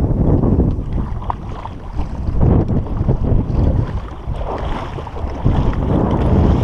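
Wind buffeting the microphone: a loud, gusty low rumble that swells and fades.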